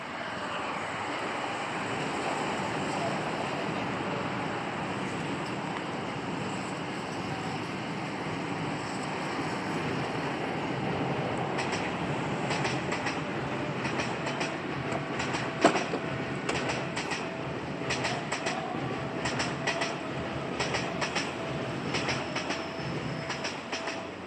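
Electric train running slowly over the station tracks with a steady rumble, its wheels clicking unevenly over rail joints and points from about halfway through, with one sharp clack near two-thirds of the way and a faint steady whine.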